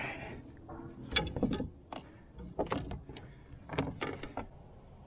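Bowfishing line and gear being handled by hand on a plastic kayak deck: four short bursts of clicks, knocks and rustling.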